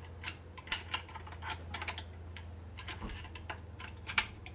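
Screwdriver and small hand tool clicking and tapping against metal parts inside a Harley-Davidson Sportster engine crankcase: a series of irregular sharp clicks over a steady low hum.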